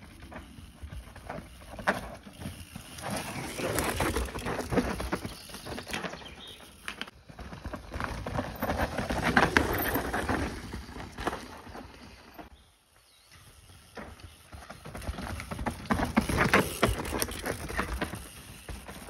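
Mountain bikes riding past on a dry dirt trail: knobbly tyres crunching and sliding through loose dirt, with bikes rattling over the bumps. It swells and fades three times as riders go by, with a brief drop near the middle.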